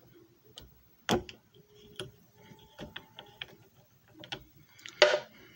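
Irregular plastic clicks and knocks from an optical disc being handled by its hub at a disc repair machine, about seven in all, the loudest about five seconds in.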